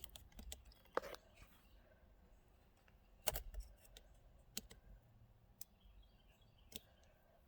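A few faint, scattered clicks and knocks of hard plastic and tools being handled, the loudest about three seconds in.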